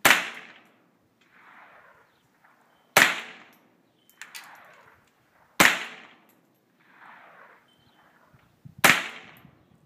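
Ruger 10/22 semi-automatic .22 LR rifle fired four times at an unhurried pace, a sharp crack roughly every three seconds, each with a brief ringing tail.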